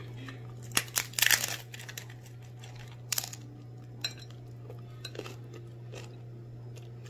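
Hard flat-bottom taco shell crunching as it is bitten into: a loud cluster of crunches about a second in, another near three seconds, then a few fainter crunches of chewing, over a steady low hum.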